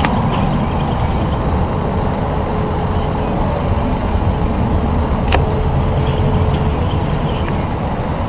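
A loud, steady, low rumbling drone of unexplained origin, one of the 2011 'mystery sounds'. A faint steady hum rides on it through the middle, and there are sharp clicks at the start and about five seconds in.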